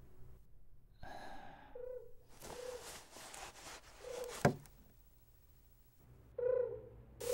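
A run of short, breathy gasps and hisses on the film's sound track, several ending in a brief held tone, with one sharp knock about four and a half seconds in.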